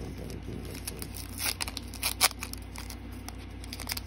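Foil wrapper of a Pokémon booster pack crinkling and tearing open in a few short rips, the loudest a little over two seconds in.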